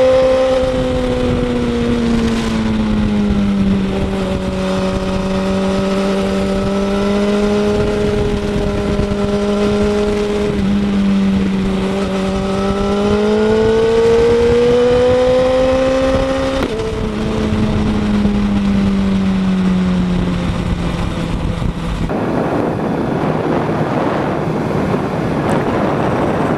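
BMW S1000RR's inline-four engine running through an aftermarket Pro Race exhaust end can while riding. The pitch is fairly steady and rises and falls gently, steps down suddenly about 17 seconds in, then sinks lower while a rushing noise grows near the end.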